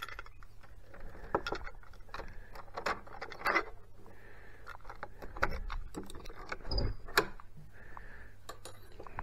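Keys on a wooden fob jangling while a metal lever door handle is pressed and rattled to unlock and open a door: a scatter of small metallic clicks and knocks.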